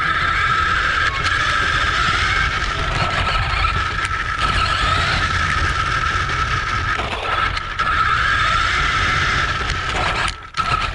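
Battery-powered RC off-road car with a scale Polaris RZR Pro XP body driving on asphalt, heard close from a camera riding on it. A steady high electric-motor whine over a rough rumble of tyres and chassis, cutting out for a moment near the end.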